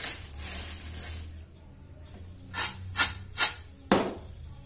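Crisp fried cassava strips rustling and crackling as a hand tosses them in a steel plate, with four sharp crackles about half a second apart in the second half.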